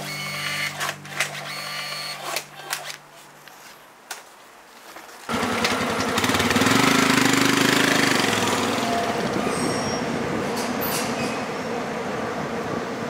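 Royal Enfield Himalayan's single-cylinder engine pulling away. It comes in suddenly about five seconds in, grows louder as the bike moves off, then slowly fades as it rides away.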